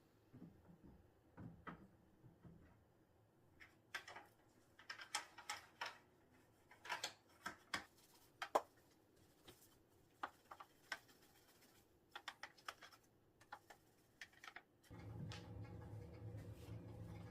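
Scattered light clicks and knocks of things being handled, typical of cleaning a washing machine. A steady low hum starts suddenly a few seconds before the end.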